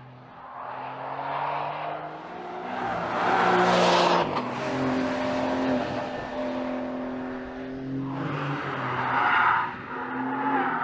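Exhaust of a 2025 Porsche 911 Carrera GTS's 3.6-litre flat-six engine. The engine note swells to a loud peak about four seconds in and cuts off sharply, runs steadily for a few seconds, then swells and drops once more near the end.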